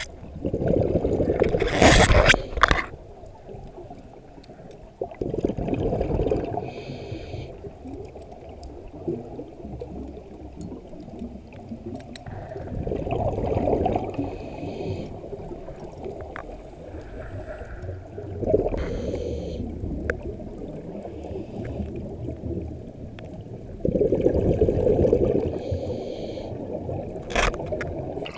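Scuba regulator exhalation bubbles underwater, heard through a camera's waterproof housing: a bubbling rush every five to six seconds with quieter murky water noise between, and a few sharp clicks.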